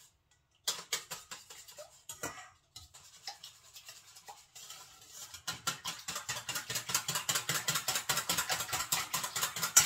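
Whisking egg-and-milk batter with a metal utensil in a stainless steel bowl: quick, even clinking and scraping of metal on metal. It turns faster and louder about halfway through.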